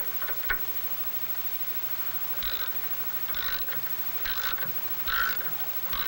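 A threaded fitting being turned out of a spring-type air brake chamber: a couple of sharp metallic clicks near the start, then short creaking squeaks about once a second as the threads turn, loosening a part that holds back the chamber's spring force.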